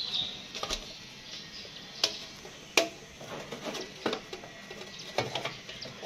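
Screwdriver working a screw into a sheet-metal bracket on the back of a refrigerator: scattered light metallic clicks and taps, with the sharpest two about 2 and 2.7 seconds in.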